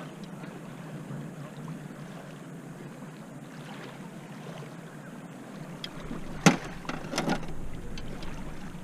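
Motorboat towing water skiers, its engine running steadily in the distance across the lake, with two short knocks about two-thirds of the way through.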